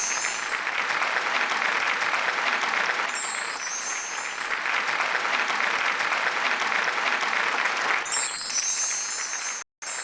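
Applause sound effect, steady clapping, with a sparkling chime flourish that comes back three times. It cuts out briefly near the end.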